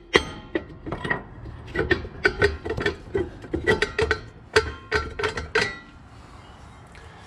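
Rusty rear brake drum of a Suzuki Vitara being rocked and pulled off its wheel studs by hand, clanking and ringing in quick metal knocks. The knocks stop about six seconds in, as the drum comes free.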